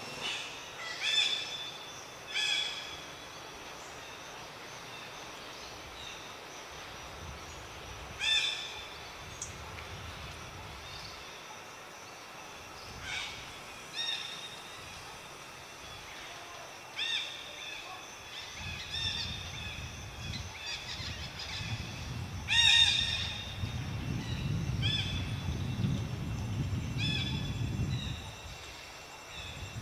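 Short high-pitched animal calls, about ten of them at irregular intervals, each a brief clear cry. A low rumble builds under them in the second half.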